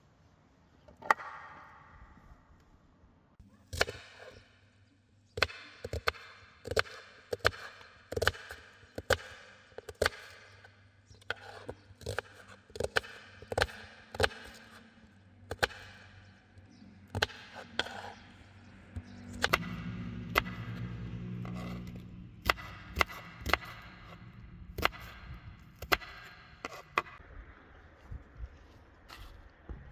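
Knife chopping on a cutting board: a long run of sharp, uneven strokes, about one or two a second, with short pauses between runs.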